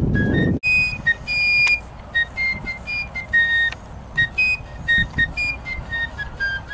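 A fife playing a quick marching tune of short, high notes. The tune breaks for an instant about half a second in, and a low rumble drops away at that point.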